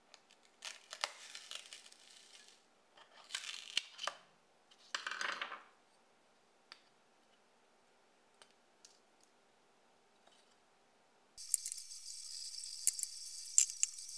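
A small screwdriver scraping and picking at a 3D-printed plastic motor mount in a few short strokes, then faint ticks. Near the end, a steady hiss sets in, with light clicks as the plastic mount and a stepper motor are handled.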